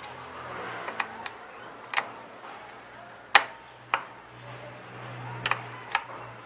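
Irregular metallic clicks and clinks of a spanner working the rear-wheel chain adjuster nut and bolt on a motorcycle swingarm, about seven in all, with one sharp clink about halfway through.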